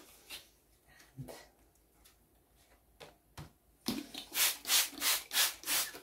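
Hand-pump spray bottle squirting liquid dye: a few soft knocks, then a quick run of about five trigger squirts, each a short hiss, about three a second.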